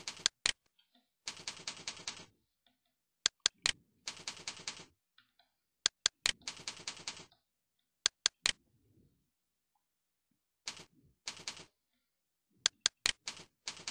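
Computer keyboard typing in short bursts of rapid keystrokes, with single sharp clicks between the bursts and a pause of about two seconds past the middle.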